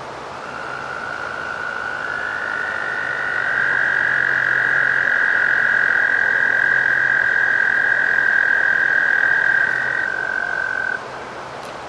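Two male American toads giving their long, steady musical trills. One starts just after the start, a second at a slightly higher pitch joins about two seconds in, and they overlap until the higher one stops near ten seconds and the lower one about a second later.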